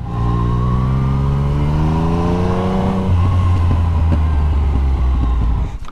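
Yamaha MT-09's three-cylinder engine heard from the rider's seat, pulling in gear with the pitch rising slowly for about three seconds, then dropping to a lower steady note as the throttle is rolled off, and falling away near the end.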